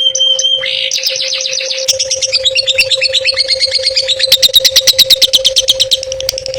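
Songbird singing a varied, fast song of trills and chips, starting with a short steady whistle and breaking about four seconds in into a rapid, loud run of repeated notes, over a steady low hum.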